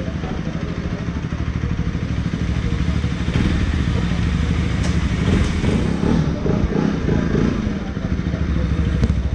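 A Bajaj Pulsar NS motorcycle's single-cylinder engine running steadily at low revs as a mechanic rides it slowly across the workshop floor. Voices talk faintly in the background partway through.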